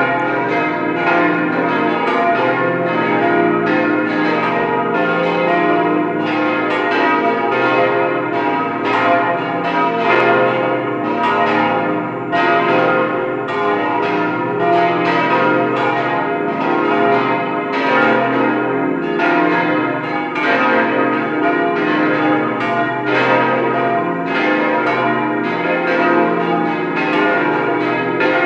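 Peal of five cast-steel church bells, tuned B♭, C, E♭, F and A♭ and cast in 1954 by Bochumer Verein, swinging and ringing together. Their strokes overlap in a steady, unbroken stream of several strikes a second over the long hum of the bells.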